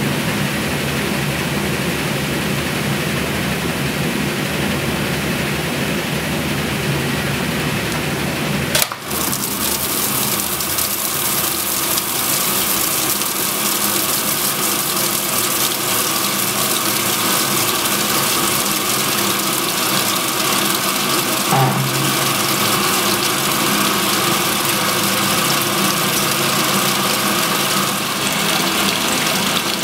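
1963 Frigidaire Custom Imperial washer with a Multi-Matic belt-drive transmission, its motor humming steadily as the basket spins. About nine seconds in, a sharp click comes, and after it a hiss of water spraying into the spinning basket is heard over the hum.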